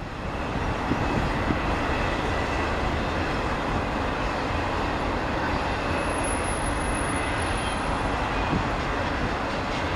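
Double-stack container train cars rolling past: a steady, even noise of steel wheels on the rails.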